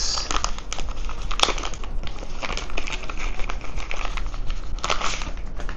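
Thin white wrapping crinkling and rustling as hands peel it off a small camera case, in quick crackly bursts with a louder crinkle about five seconds in.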